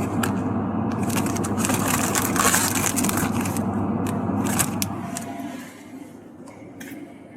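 Shopping cart rolling across the floor with a steady rumble and rattling clicks; it fades out at about five and a half seconds in.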